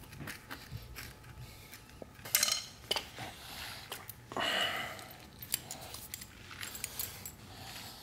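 Rubber clutch pedal pad being worked off a plastic pedal and onto a metal pedal: rubber rubbing and scraping, with sharp clicks and small metallic clinks. The loudest clicks come about two and a half seconds in, and a longer scrape comes near the middle.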